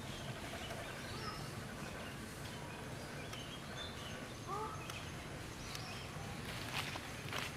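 Outdoor ambience: steady background noise with a few faint, short chirping calls, and two sharp clicks near the end.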